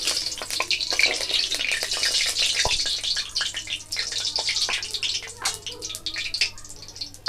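Mustard oil heating in a kadai, sizzling with a dense crackle of small pops that eases off over the last couple of seconds; the oil is coming up to frying heat.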